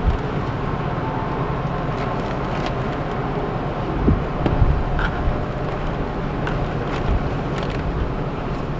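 Steady low rumble of a running vehicle engine, with a few light clicks and a couple of dull low thumps about four to five seconds in.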